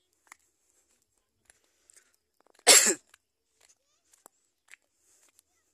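A single short cough close to the microphone, about halfway through, with only faint scattered ticks around it.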